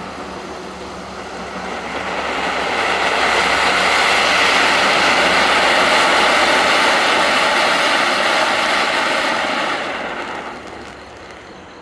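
Funke silver fountains, small F1 ground fountains, burning with a steady hissing rush of spraying sparks. The hiss builds over the first couple of seconds, holds strong through the middle and fades near the end as the fountains burn out.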